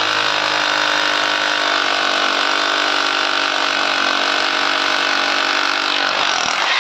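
Buildskill BGBH26RE 1000 W rotary hammer drill drilling in hammer-drill mode with a 10 mm bit, its motor held at a steady lower pitch under load. Near the end the pitch rises as the motor speeds up again, as the bit breaks through the workpiece.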